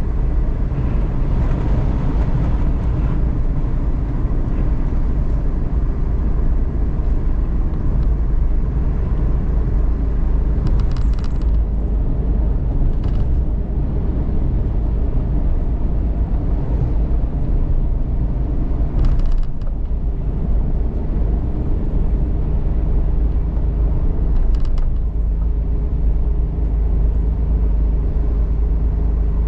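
Cabin sound of a Suzuki Every DA17V kei van being driven: a steady low engine and road rumble from its 660 cc three-cylinder, with a few brief noises standing out above it.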